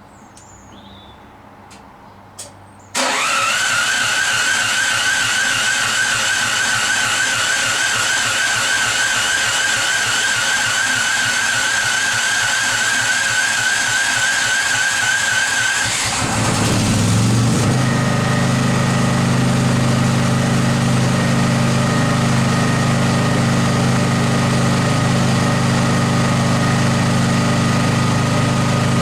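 Workshop machinery: a motor starts suddenly about three seconds in with a high, wavering whine, then about halfway through gives way to a lower, steady hum.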